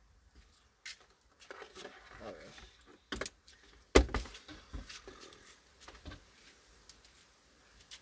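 Handling noise from the cardboard box of a Frigidaire mini cooler being moved about: rustling and scattered knocks, the loudest a sharp knock about four seconds in.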